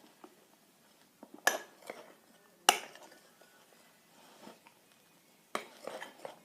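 A spoon knocking and clinking against a mixing bowl while stirring: sharp single knocks about a second and a half in and near three seconds, then a quick run of clinks near the end.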